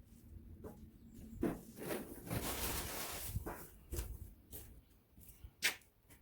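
Hands working a fuel line into place under a car: irregular rubbing and rustling with a longer scraping stretch in the middle, and scattered small clicks, the sharpest a little before the end.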